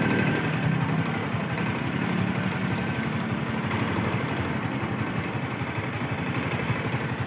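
Honda XRM 125 FI's single-cylinder four-stroke engine idling steadily, running quietly after an overhaul.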